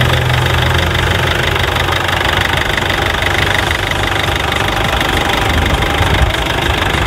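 Mercedes-Benz ML 250's 2.1-litre four-cylinder turbodiesel idling steadily, heard over the open engine bay; a sound the seller calls very smooth.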